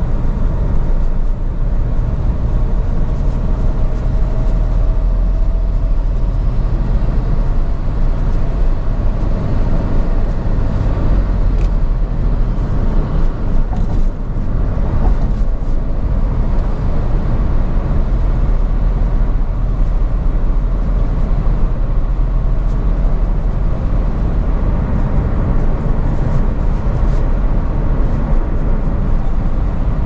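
Steady low rumble of a moving car: road, engine and wind noise. A faint whine sounds over the first few seconds, and a few light clicks come around the middle.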